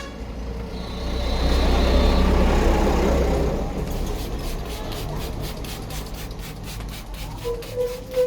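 A heavy road vehicle such as a truck or bus passes on the street, a low rumble that swells about a second in and fades by the middle, with a thin high whine over its first part. It is followed by a run of quick, light, evenly spaced taps.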